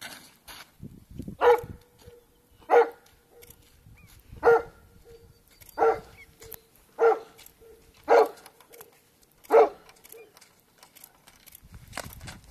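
Curly-coated retriever barking seven times, single loud barks spaced about a second to a second and a half apart, stopping a little before the end.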